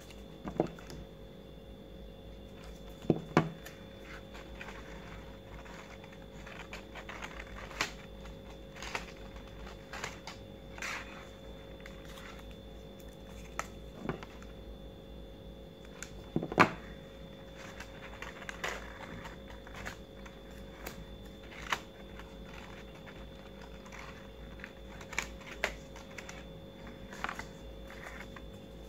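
Paper petals being handled and shaped: irregular soft rustles, taps and clicks, the sharpest a few seconds in and about midway, over a faint steady hum.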